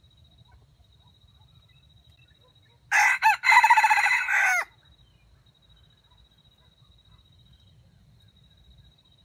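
Jungle fowl rooster crowing once, about three seconds in: two short notes and then a longer held call, about a second and a half in all.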